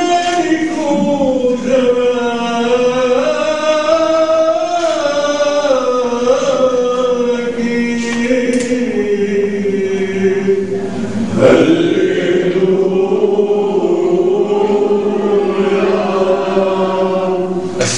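Men's voices chanting a slow liturgical hymn, a melody of long held notes that rises and falls. A new phrase starts about two-thirds of the way through.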